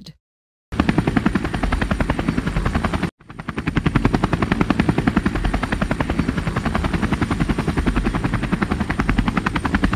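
Helicopter rotor blades chopping in a fast, even rhythm. The sound cuts out for about half a second just after the start, drops out briefly about three seconds in, then fades back up and runs steadily.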